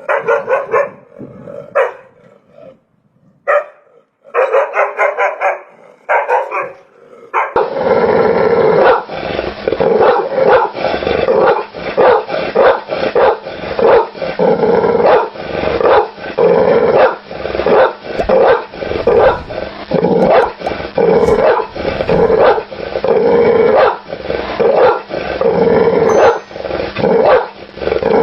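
Dog barking in short bouts with brief pauses between them. About seven seconds in, a different recording takes over: a steady, rapid run of barks over a hissy background.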